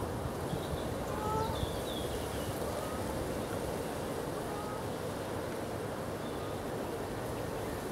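Steady outdoor background hiss and rumble, with a few faint, short bird chirps in the first three seconds and once more about six seconds in.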